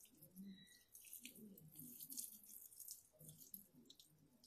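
Faint dripping and trickling of liquid, with many small crackling ticks.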